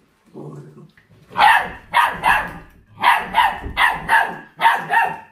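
A young puppy growling briefly, then barking a rapid run of about nine sharp, high barks while guarding a piece of raw meat from an older dog.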